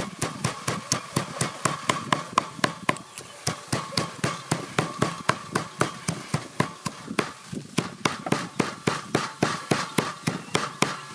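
Steel cleaver mincing fish and sliced lemongrass on a wooden chopping block: quick, even chops, about four a second.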